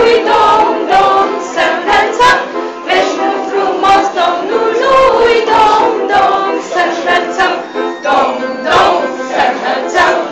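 A small group of women and children singing a Christmas carol together.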